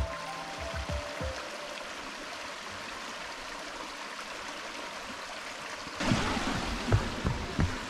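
Steady rushing of a creek. About six seconds in, it gets louder and a runner's footsteps start thudding on the trail over it.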